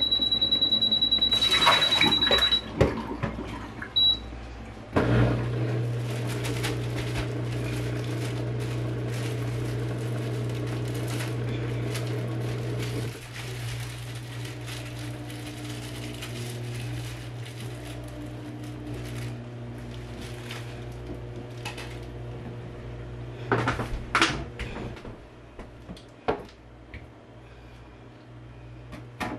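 Countertop dishwasher: water poured into its tank over a long steady beep, then a short beep, and about five seconds in its pump starts with a steady low hum that drops in level about halfway through and keeps running. A few knocks near the end.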